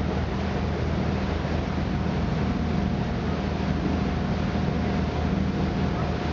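Boat engine running at a steady, even pitch under a constant rushing hiss.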